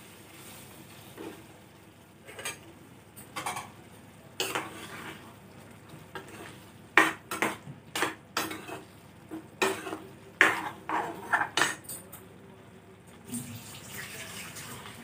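Chana dal and lauki being stirred in a stainless steel pan: scraping strokes at first, then a steel ladle clinking and scraping against the pan in a run of sharp knocks between about 7 and 12 seconds.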